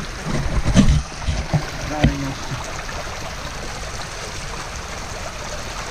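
Water splashing and sloshing around a person wading waist-deep through a flowing stream, over the steady rush of the running water. The splashing is loudest in the first two seconds, then it settles to an even wash.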